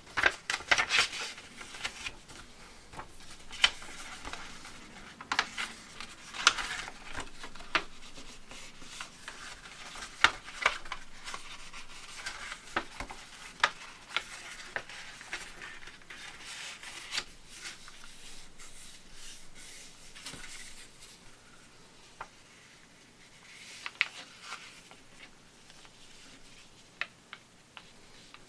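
A sheet of paper being folded and creased by hand on a cutting mat: irregular rustling and crinkling, with short sharp crackles as folds are pressed flat.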